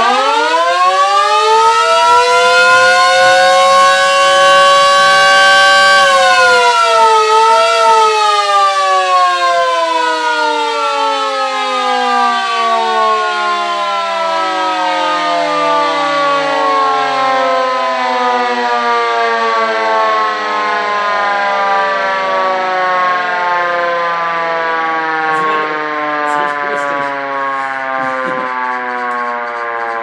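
Two small electric motor sirens, an Elektror and an Auer S2a, give a short wail-up together. The pitch rises quickly and holds for a few seconds. About six seconds in the power is cut and both sirens wind down in a long, slowly falling wail that is still sounding at the end.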